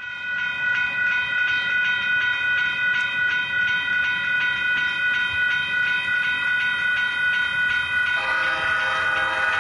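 Train horn sounding in one long, steady blast, with a second, lower horn note joining about eight seconds in.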